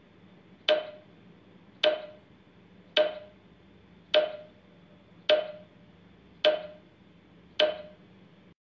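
Countdown timer sound effect ticking, seven sharp ticks a little over a second apart, each with a brief ring, over a faint steady hiss. The hiss cuts off suddenly near the end as the countdown runs out.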